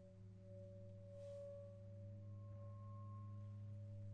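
Saxophone quartet holding soft, sustained notes, several pitches stacked in a quiet chord, with a faint higher note entering about two seconds in and fading out near the end.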